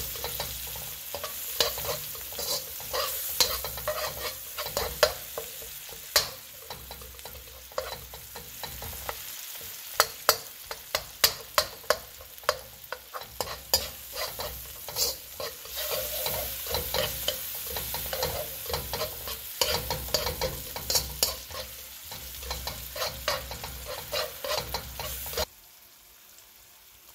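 Onions, tomato and chili frying in oil in a wok, sizzling steadily while a metal slotted spoon stirs and scrapes, making many sharp clicks against the pan. The sizzling and scraping cut off abruptly near the end.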